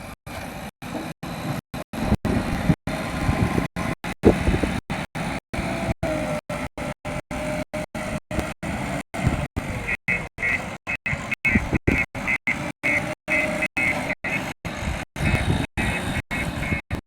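Backhoe loader's diesel engine running under work, the sound chopped by short silent gaps several times a second. Faint rapid high chirps come in about ten seconds in and again near the end.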